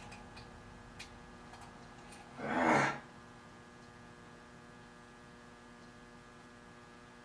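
Steady electrical hum in a machine shop, with a few faint clicks early and a short breathy rush about two and a half seconds in.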